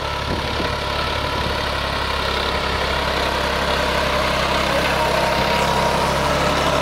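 New Holland 5500 tractor's diesel engine running steadily under load while driving a rotary tiller that churns the soil, growing a little louder as it nears.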